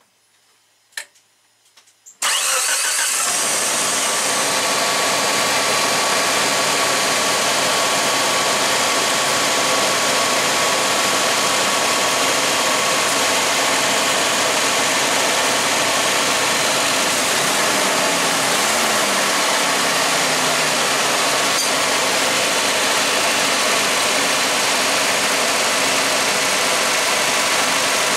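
Geo Tracker's four-cylinder engine starts about two seconds in and idles steadily. The newly fitted GM alternator is not charging: battery voltage sags below 12 volts while it runs.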